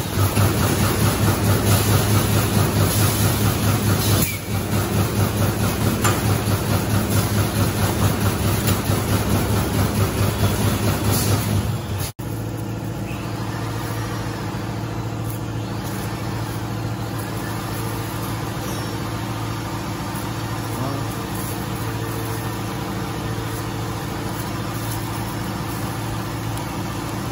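High-speed automatic plastic T-shirt bag making machine running, its sealing and punching station cycling in a regular rhythmic pulse. About 12 seconds in, the sound changes abruptly to a steadier machine hum with a low drone.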